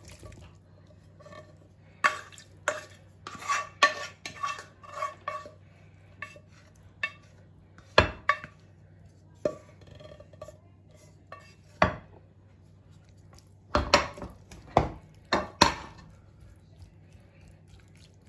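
A wooden spoon scraping and knocking cooked cubed meat out of a pot into a ceramic baking dish: irregular taps and scrapes, with single sharp knocks now and then and a quick run of knocks towards the end.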